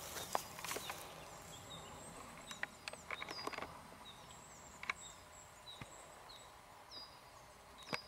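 Faint, short, thin bird chirps repeating every second or so, with a few footsteps and twig snaps on the forest floor, most of them in the first few seconds.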